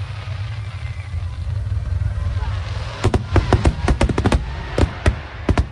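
Fireworks display: a deep, steady rumble of booming shells, then from about three seconds in a rapid run of sharp crackling reports.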